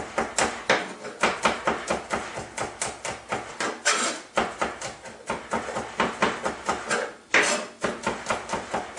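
Chef's knife chopping garlic on a plastic cutting board: quick, repeated knocks of the blade on the board, about three or four a second, as the cloves are finely minced.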